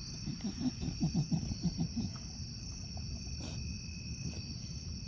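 Bulldog snuffling with its nose in the grass: a quick run of short, low breaths in the first two seconds or so. Crickets chirp steadily behind it.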